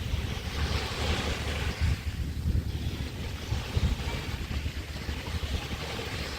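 Small waves washing steadily on a Chesapeake Bay beach, with wind buffeting the microphone in a low, uneven rumble.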